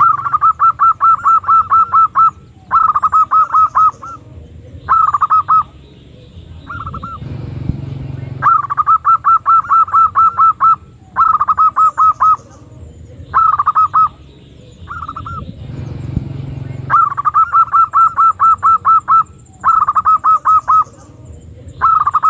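Female zebra dove (perkutut) calling: phrases of rapid, evenly pulsed cooing notes. A long phrase is followed by three shorter ones, and this cycle repeats three times. A low rumble sounds in the pauses between cycles.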